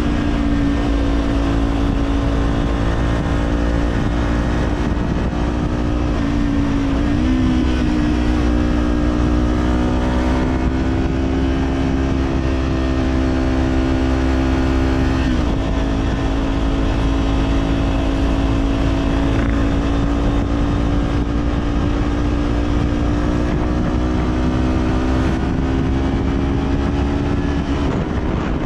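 Kawasaki Z400's parallel-twin engine under way through an Orion Katya slip-on exhaust, its note climbing slowly under throttle. The note dips briefly about 7 seconds in, again about halfway through and near the end.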